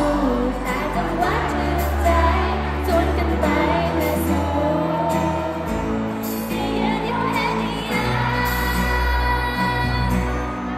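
Thai idol girl-group pop song played through the concert sound system, with female singing over a steady bass beat.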